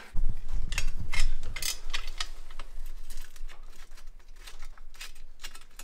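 Small clicks and taps of hand tools and parts being handled during hand work on a motorcycle engine, scattered irregularly, with a low rumble in the first two seconds.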